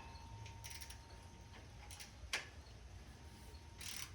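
Faint clicks and scraping of a wrench tightening the oil drain nut on a mower engine, with one sharp metallic click about two seconds in.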